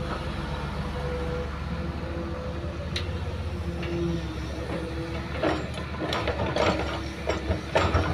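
Hitachi hydraulic excavator running with a steady low engine rumble and a faint tone that shifts in pitch as the loaded arm swings toward the dump truck. From about five and a half seconds in, a run of sharp knocks and clanks.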